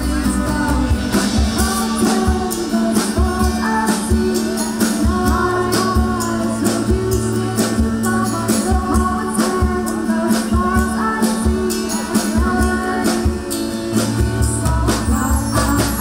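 Live band playing a song: women singing together over acoustic guitar and glockenspiel, with a steady percussive beat.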